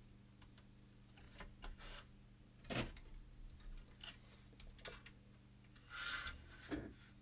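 A few small sharp clicks and taps of plastic as a dryer controller circuit board is pressed and worked against the clips of its plastic housing, with a short scrape about six seconds in. A faint steady low hum lies underneath.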